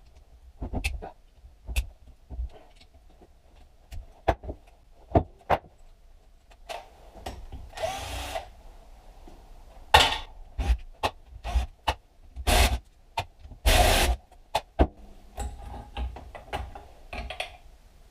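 Tools working on a Honda Magna motorcycle engine during teardown: irregular sharp metallic clicks and knocks, with a few short bursts of a tool about halfway through and later on, as a stubborn part is worked loose.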